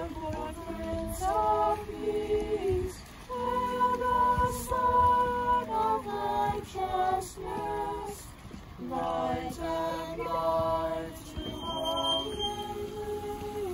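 A small group of women and children singing a Christmas carol a cappella, with no instruments: sung phrases with brief breaths between them.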